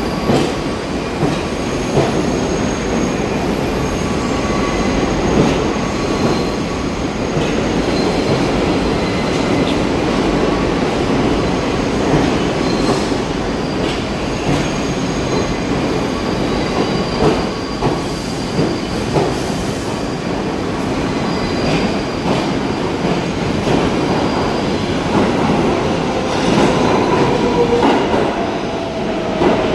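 New York City subway trains running through an underground station: a steady rumble and rattle of steel wheels, with clicks over the rail joints and intermittent high wheel squeal. Near the end a whine drops in pitch.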